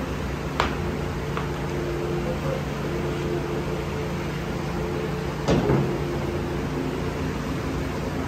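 Steady low machine hum, with a sharp click under a second in and a louder slap about five and a half seconds in as a piece of dough is handled on the worktable.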